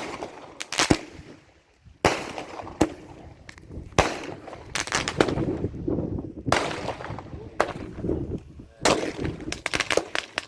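Fireworks going off: a string of sharp bangs at irregular intervals, each with a short echoing tail, and a quick run of several bangs close together near the end.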